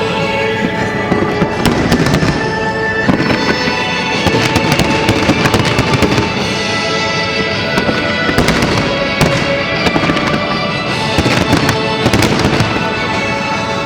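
Fireworks going off in quick succession, many sharp bangs and crackles, over loud music playing throughout.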